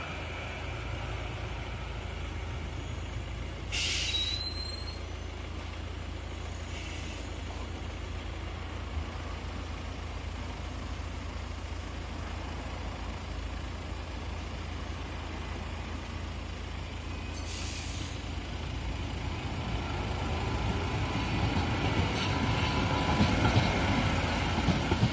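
Oslo Ekebergbanen light-rail tram, with two short hisses of air, about 4 and 17 seconds in. Near the end its running noise and wheels on the rails grow louder as it passes close by.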